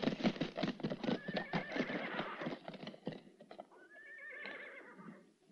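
Horses' hooves clattering as a group of horses moves about. One horse gives a long whinny about a second in, and another whinny follows near the four-second mark as the hoofbeats die away.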